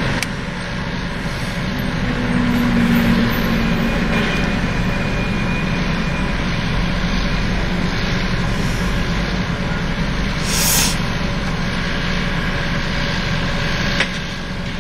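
A car running, heard from inside the cabin: a steady low rumble of engine and road noise, with a short hiss about ten and a half seconds in.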